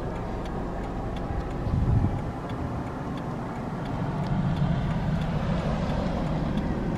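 Car on the move: a steady engine and road rumble, swelling about two seconds in and again in the second half, with a faint regular ticking above it.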